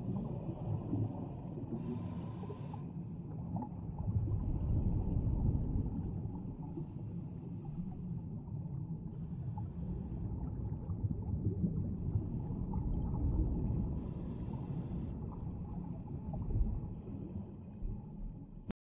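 Underwater sound of scuba diving: a steady low rumble with about four bursts of bubbling hiss, each about a second long, from divers exhaling through their regulators. It cuts off suddenly just before the end.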